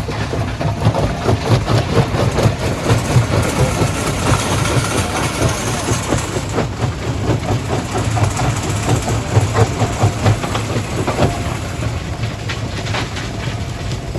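Stone crushing plant at work: a steady low diesel engine drone under a continuous, irregular clatter of rock being crushed and conveyed.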